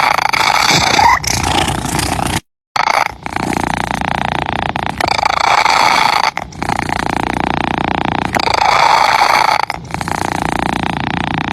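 Close-miked domestic cat purring. The purr alternates between in-breath and out-breath phases every couple of seconds. It drops out completely for a moment about two and a half seconds in.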